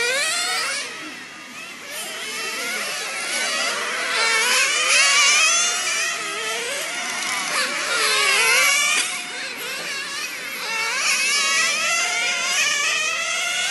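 Several 1/10-scale nitro touring cars running at high revs, their small glow engines overlapping in a high whine that keeps rising and falling as they accelerate and lift off around the track.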